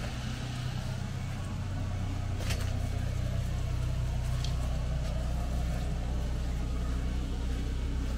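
Steady low hum of an engine running, with two faint clicks about two and a half and four and a half seconds in.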